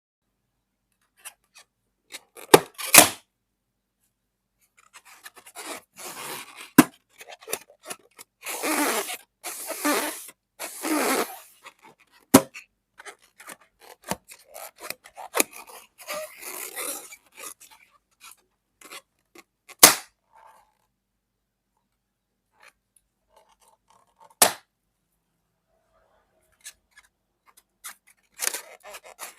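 Rubber balloons being squeezed and rubbed, with stretches of scraping and squeaking, broken by about six sharp pops as balloons burst.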